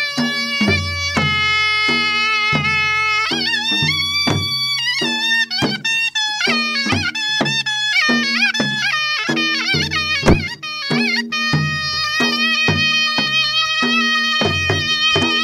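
Baloch chap dance music: a reed pipe plays a wavering, ornamented melody over a steady beat on a dhol drum.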